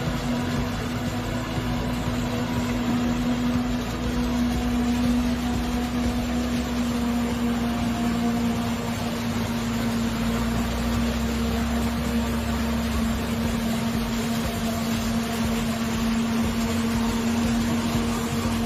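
Self-propelled forage harvester running as it cuts and chops tall standing crop, a steady machine drone with a constant hum-like tone, alongside the truck that is catching the chop.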